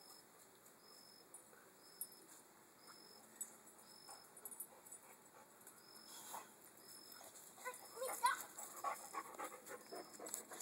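A dog panting rapidly close by, starting about eight seconds in; before that, only faint outdoor background.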